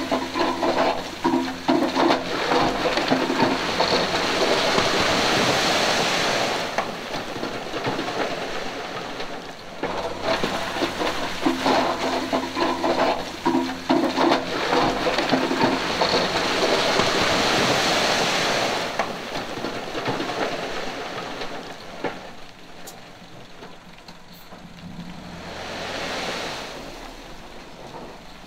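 Heavy earthmoving machinery working stone: diesel engine running under a loud rushing, rumbling noise of rock and earth being moved, in two long surges with a quieter spell between, dying down in the last several seconds.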